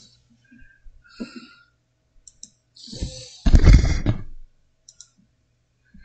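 Computer mouse clicks while browsing a web page, a few short sharp clicks, with a louder noise lasting about a second about three seconds in.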